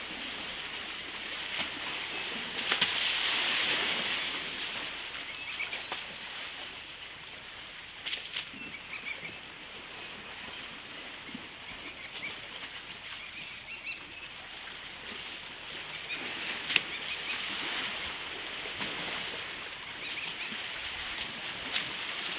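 African elephants wallowing in a muddy waterhole, with bursts of splashing water, and small birds calling in short chirps now and then.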